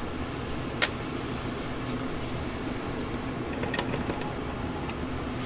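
A steady background whir, like a fan, with one sharp click about a second in and a few light clicks near four seconds, as a small replacement radio speaker is handled and set down on a workbench.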